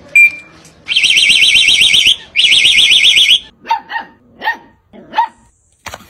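A short beep, then a warbling car-alarm siren sounding twice, each time for about a second, followed by a dog barking four times.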